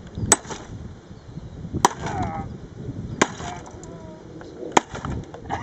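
Sledgehammer smashing into a spectrophotometer: four heavy blows about a second and a half apart, each with a short rattling crunch after the hit.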